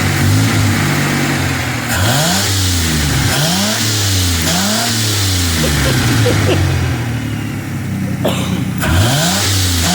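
Pontiac Firebird's carbureted engine running and being blipped, its pitch jumping up in several quick revs between steadier running. Berryman's B12 carburetor cleaner has just been poured down the carburetor to clear out deposits.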